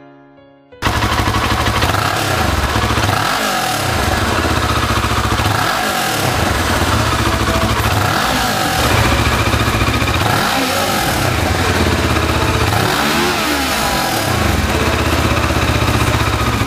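Kawasaki Ninja 650R's parallel-twin engine running through a Nojima Engineering aftermarket exhaust, cutting in abruptly about a second in and revved repeatedly, its pitch rising and falling about every two and a half seconds.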